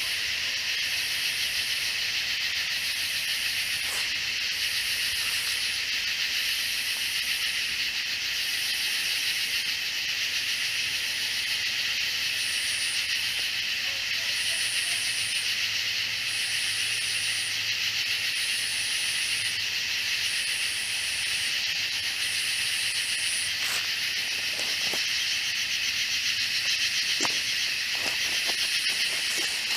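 Night insect chorus of katydids and cicadas: a steady, dense buzzing drone with a higher pulsing call repeating about once a second, which grows fainter about three-quarters of the way through.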